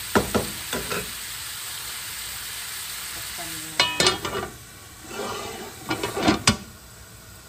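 Diced pork sizzling as it browns in a frying pan, with a wooden spatula knocking and scraping against the pan in the first second. About four seconds in, the pan's lid clinks as it is set on and settled, with a last sharp clink near the end. The sizzle then goes quieter under the lid.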